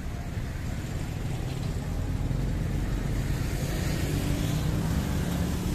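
A motor vehicle engine running nearby with a steady low rumble that gets a little louder about two seconds in.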